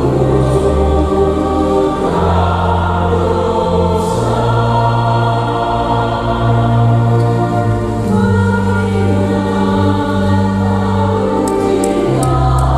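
Mixed church choir singing a slow Indonesian Catholic hymn, accompanied by organ that holds long bass notes, changing every two seconds or so.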